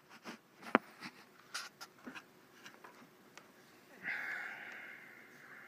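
Quiet room with a few faint clicks and taps, then about four seconds in a soft breathy exhale lasting about a second and a half, fading out: a person sighing while thinking over a question.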